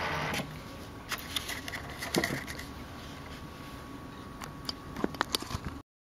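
Brother EP-43 thermal typewriter's print mechanism running steadily, then stopping just under half a second in. Scattered light clicks and taps follow, with a few quick ones near the end.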